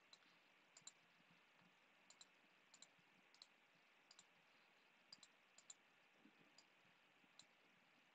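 Faint, sharp clicks over near silence, many coming in quick pairs, about one pair every half second to a second at uneven intervals.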